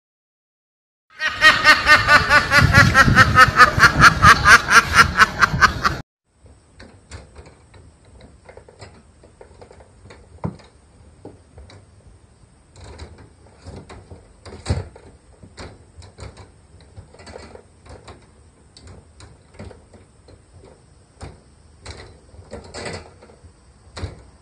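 A loud, rapid run of high calls, about four a second, lasting some five seconds near the start; then light clicks, taps and rattles of a wire pet cage as a kitten paws and climbs at its door.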